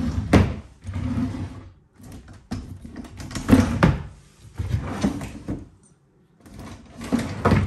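Wooden wardrobe drawers being slid open and pushed shut about five times, each a short sliding rumble with a knock as it stops.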